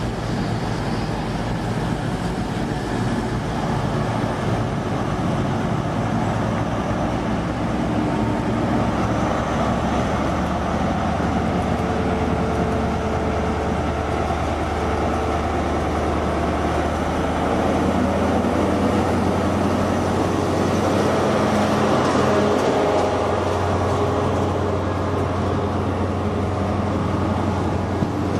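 Class 43 HST power car's diesel engine running alongside the platform: a steady low drone that grows a little louder and shifts in pitch about two-thirds through.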